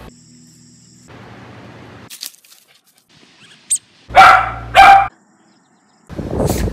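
Young Shetland sheepdog barking twice in quick succession, about four seconds in. Short stretches of quieter background noise come before, and a loud burst of noise follows near the end.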